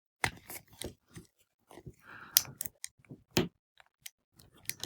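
Scattered plastic clicks, knocks and scraping from handling an action figure's wing pieces and pushing them toward their sockets. The sharpest knock comes about three and a half seconds in.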